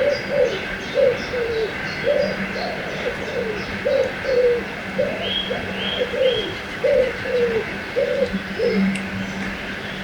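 Forest birdsong by a river: one bird calls a long, even series of low cooing notes, about two a second, while small birds chirp higher above, all over the steady rush of flowing water.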